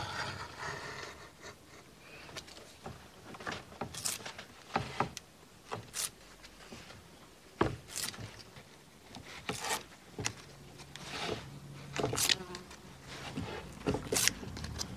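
A hand knife cutting and scraping thin wooden veneer, in short, sharp strokes at irregular intervals about one to two seconds apart.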